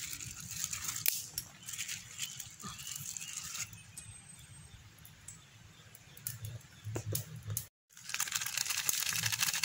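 Light rustling and scattered small clicks of hands handling mushrooms on a banana leaf, over a low steady rumble; the sound cuts out for a moment near the end.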